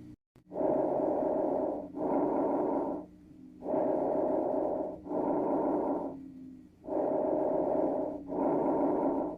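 Breath sounds heard through a stethoscope, as played for lung auscultation training: three breaths, each an inhale and an exhale of about a second apiece, with a short pause between breaths.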